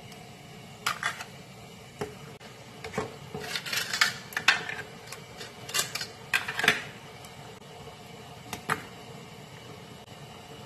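Hard clam and scallop shells clacking against one another, a metal mesh strainer and the pan as they are handled and set into the broth: a scatter of sharp clicks, busiest in the middle, with a last pair near the end.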